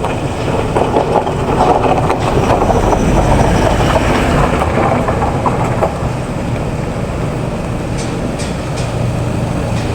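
Rumbling motor vehicle engine and road noise, swelling over the first few seconds and then running steadily.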